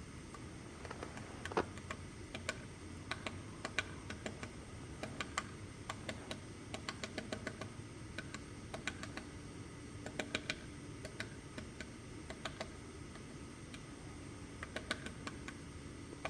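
Woodpecker pecking at wood: irregular sharp taps, single and in short quick clusters, not a drumming roll.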